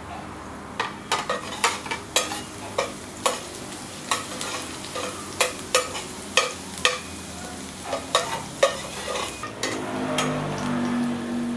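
Minced garlic sizzling in a stainless steel pot while a metal spatula scrapes and knocks against its sides, about two sharp knocks a second. Near the end the knocking stops and the sizzle goes on alone, a little louder.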